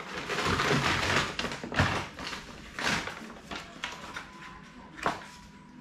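Handling noise: rustling with a few sharp knocks, loudest in the first two seconds, as paper and the printer's pulled-out plastic paper tray are handled.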